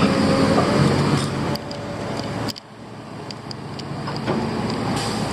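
Diesel engine of heavy construction machinery running steadily. About two and a half seconds in the sound drops off sharply, then builds back.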